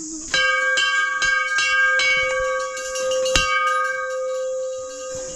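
Hanging temple bell struck again and again, about three strokes a second, for the first three seconds or so. Its single ringing tone then carries on and fades away. Insects keep up a steady high drone behind it.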